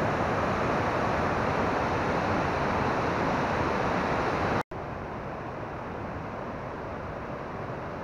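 Mountain stream rushing powerfully down a narrow rocky cascade, a steady, dense noise of white water. A little past halfway the sound cuts out for an instant and comes back quieter and duller.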